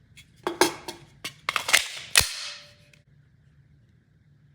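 Metal clicks and clacks from handling a Glock 45 pistol build: about half a dozen sharp strokes in the first two seconds or so, the last one loud with a brief ring, then quiet.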